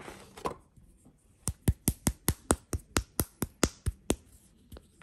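Quick, evenly spaced sharp taps, about a dozen at roughly five a second, starting over a second in, with one more tap near the end. A brief rustle of handling comes at the start.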